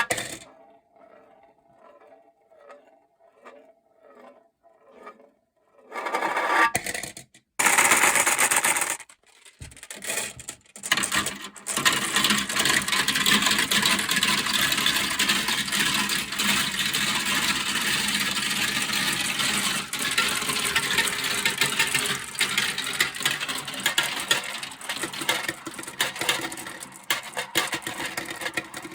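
Glass marbles rolling down a plastic marble-run slope. First there are light, evenly spaced ticks, about two a second. Then, from about six seconds in, a long, loud clatter of many marbles rolling and rattling down the tracks together.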